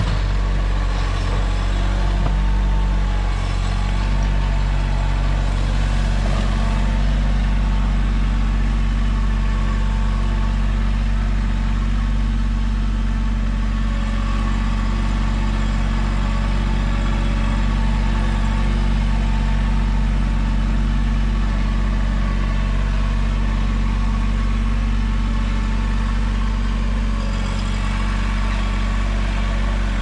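Mahindra 1626 compact tractor's three-cylinder diesel engine running steadily, its pitch shifting slightly in the first few seconds.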